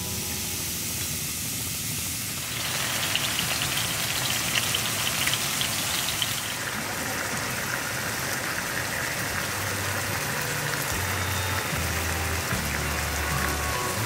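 Enoki mushrooms and sauce sizzling and crackling in a hot oiled frying pan on a gas stove, the sizzle getting louder about two seconds in.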